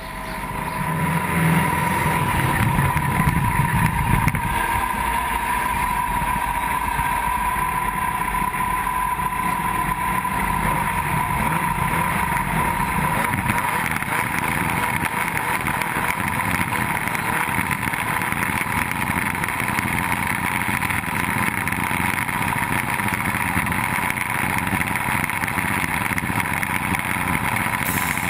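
Off-road race car engine running steadily at idle while the car waits at the start line, with a steady high whine over it.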